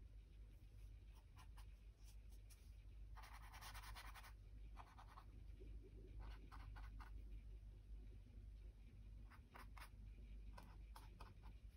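Near silence with faint strokes and light ticks of a small paintbrush dabbing black gesso onto a board, and a short scratchy rustle about three seconds in.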